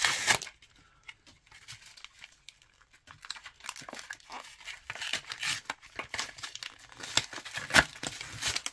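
Sealed trading card pack wrapper crinkling and tearing as it is worked open by hand: a loud rustle at the start, a quieter stretch, then steadier crinkling from about three seconds in with a sharp crackle near the end.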